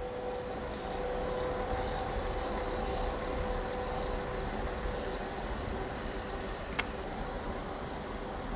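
Steady drone of railway locomotives running at a standstill or at a distance, with two steady tones over a low rumble. A single sharp click comes about seven seconds in.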